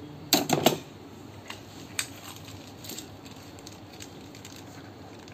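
Metal hand tools clinking and rattling against each other as they are handled in a toolbox: a quick cluster of knocks about half a second in, a single sharp click about two seconds in, then scattered lighter clicks.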